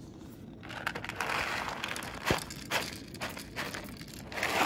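Plastic pouch of CIAO dry cat food crinkling as it is handled, from about a second in, then a few sharp clicks and another crinkle near the end as kibble is tipped out into the bowl.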